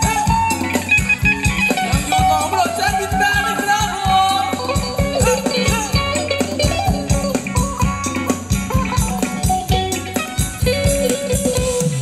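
Live band playing Thai ramwong dance music: a steady drum beat under a melody on guitar or keyboard.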